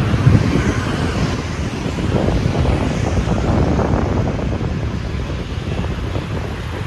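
Steady road traffic noise with wind rumbling on the microphone.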